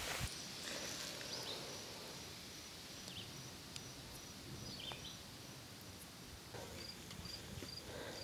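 Outdoor summer ambience: a steady high-pitched insect buzz over a soft hiss, with a couple of short chirps about three and five seconds in.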